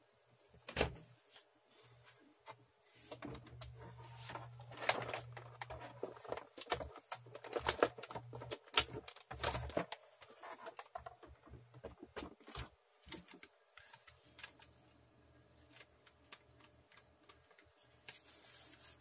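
Scattered clicks, taps and knocks of computer hardware and cables being handled. A low hum comes and goes underneath. Sharp clicks stand out about a second in and again near the middle.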